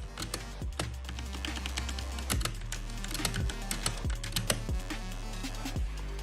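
Typing on a mechanical keyboard with Outemu red linear switches: a fast, irregular run of key clicks, over background music with a steady low bass.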